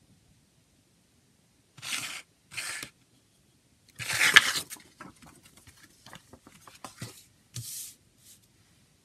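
A paper CD booklet insert being folded and pressed flat by hand. There are two short rustles about two seconds in, then a louder crinkle around four seconds, trailing off into small crackles, and another brief rustle near the end.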